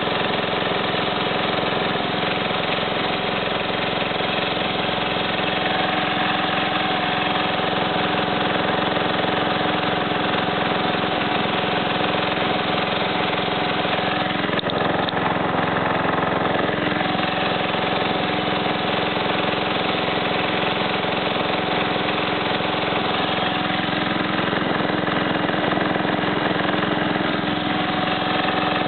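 Simplicity 4211 lawn tractor's engine running steadily as the tractor drives along, its note shifting briefly about halfway through.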